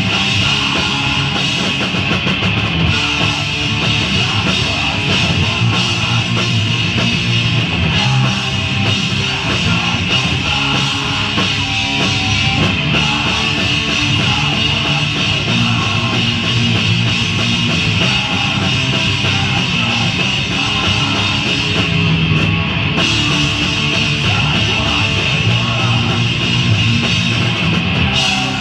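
Hardcore punk band playing live at full volume: distorted electric guitar, bass and a fast-pounding drum kit, loud and unbroken throughout.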